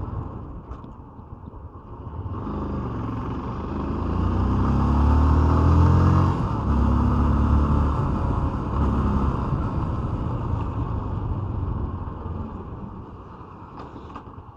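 Kawasaki Ninja 250R motorcycle engine accelerating, its revs climbing, dropping at a gear change about six seconds in and climbing again twice more before easing off and fading near the end.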